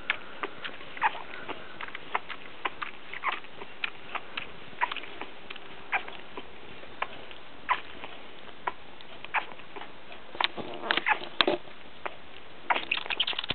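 A puppy suckling from a baby bottle: irregular wet clicks and smacks of its mouth on the teat, a couple a second, coming thicker near the end.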